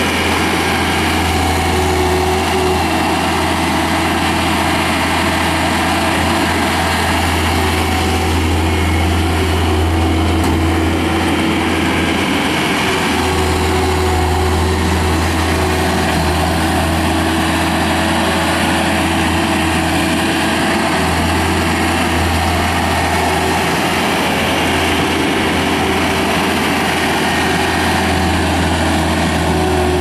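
John Deere 320 skid steer loader's 66 hp turbo diesel engine running steadily, with a constant low hum and a steady whine over it.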